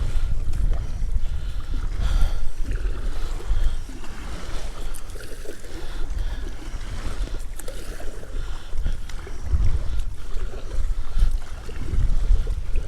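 Gusty wind buffeting the microphone, heavy and uneven, over water sloshing and splashing around a kayak being paddled.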